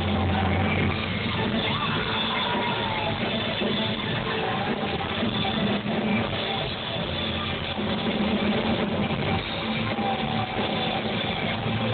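Live rock band playing on an outdoor concert stage through its PA, heard from within the crowd.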